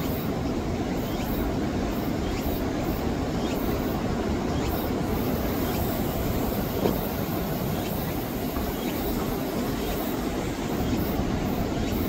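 Heavy surf breaking and surging over offshore rocks, stirred up by a typhoon swell: a steady, continuous wash of waves.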